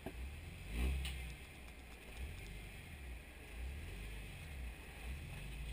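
Jeep Wrangler TJ running at low speed while rock crawling: a low, uneven rumble that swells briefly about a second in.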